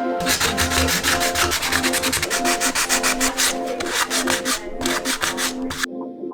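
Rapid back-and-forth hand-sanding strokes on a part, several a second, stopping abruptly near the end, over background music.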